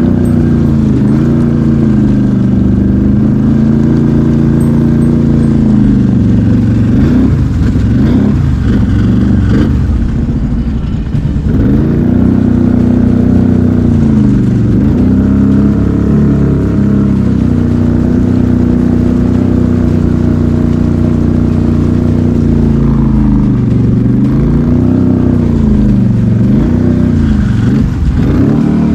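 ATV engine revving up and down in long swells as it is ridden, easing off for a few seconds about a third of the way in before pulling again.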